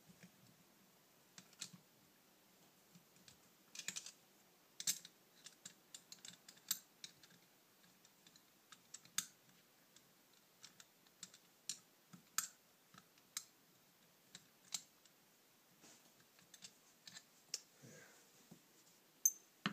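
Scattered, irregular sharp clicks and taps of a screwdriver and small metal parts against a 1979 Honda CB650 carburetor as it is taken apart by hand.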